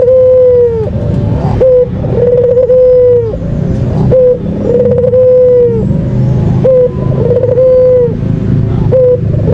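White ringneck dove (puter putih) cooing repeatedly: each coo is a short note followed by a long, steady note that drops at the end, about every two and a half seconds. A steady low rumble runs underneath.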